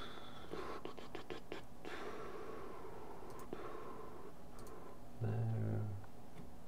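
Computer mouse clicks and keyboard taps: a quick run of clicks about half a second to two seconds in, then a few scattered ticks. Around five seconds in comes a short low hum from a man's voice, the loudest sound here.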